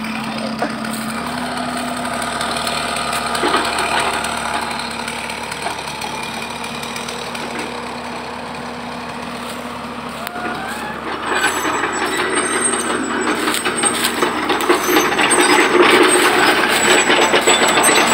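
An engine running steadily, growing louder and rougher about eleven seconds in.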